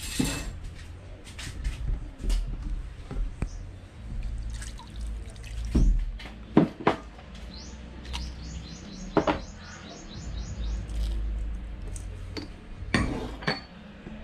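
Dark liquid seasoning, soy sauce for adobo, poured over raw chicken pieces in a stainless steel bowl, with sharp clinks of small ceramic dishes against the steel and bay leaves and pepper dropped in. A bird chirps a quick run of about eight high notes about halfway through.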